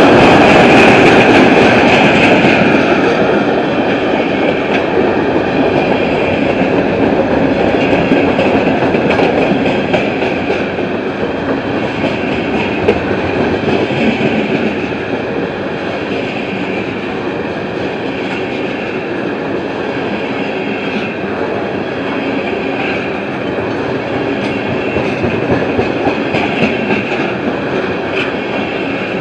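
Loaded freight train of tank cars rolling past at close range: steady rumble and rattle of the cars, with wheel clicks over the rail joints. It is loudest in the first few seconds, then settles to a steady level.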